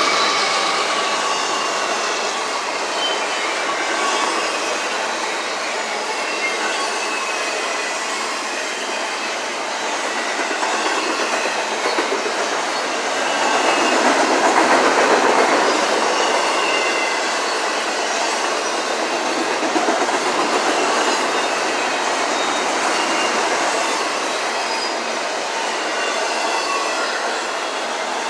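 Cars of a CSX intermodal freight train rolling past: steady wheel-on-rail noise with thin high wheel squeals coming and going, swelling louder for a couple of seconds about halfway through.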